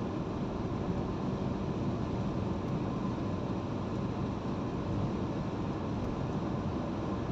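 Steady rumble of tyre and engine noise heard inside a car's cabin while it drives along a highway.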